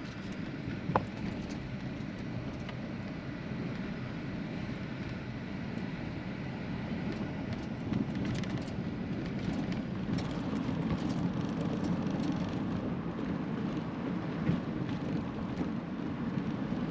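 Car driving on a bumpy road: a steady low rumble of tyres and engine, with a few short knocks along the way.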